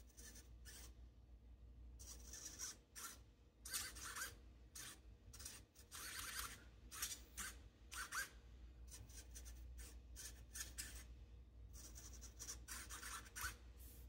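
Small blue hobby servo whirring faintly in short, irregular bursts as it swings back and forth, following a thumb joystick, several bursts a second at times.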